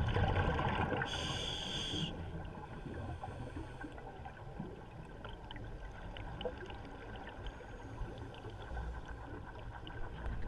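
Scuba breathing heard underwater: a rushing burst of exhaled bubbles at the start, then a short hiss from the regulator about a second in. After that, a steady low underwater rumble with faint scattered clicks.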